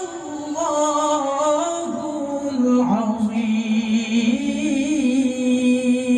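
A male qari reciting the Quran in melodic tilawah style: one voice holding long, wavering notes with ornamented turns, with a new phrase starting about three seconds in.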